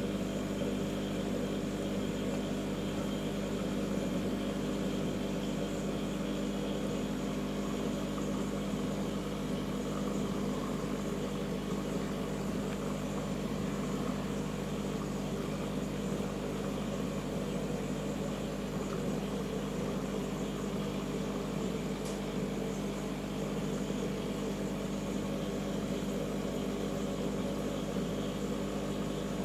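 Steady mechanical hum of a marine aquarium's pumps running, with several fixed tones and no change throughout.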